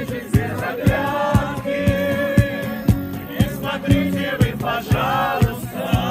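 A song playing: sung voices, more than one, over a steady drum beat of about two hits a second.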